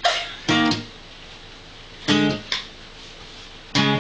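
Guitar strummed slowly in single chords, about five strums in pairs with pauses between them.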